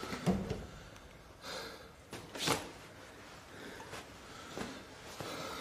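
A young man breathing hard in a few heavy, gasping breaths, the strongest about two and a half seconds in.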